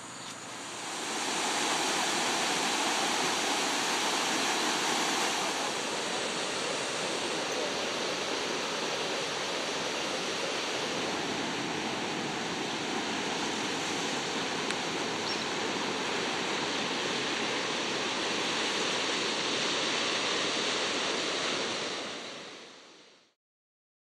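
Steady rush of ocean surf washing onto a beach, fading out near the end.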